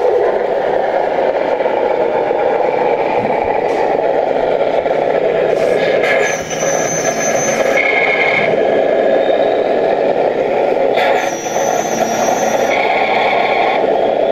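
Scale RC Kenworth truck's sound module playing a diesel truck engine through its small speaker as the truck drives, steady, changing briefly twice, about six and eleven seconds in. The owner says the sound still needs attention.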